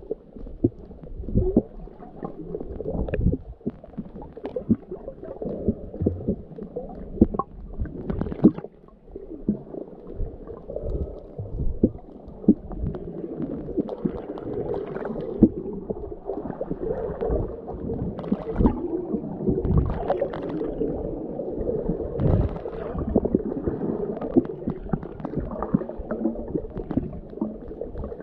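Muffled underwater sound heard through a camera's waterproof housing: water rushing and gurgling, with frequent sharp clicks and knocks.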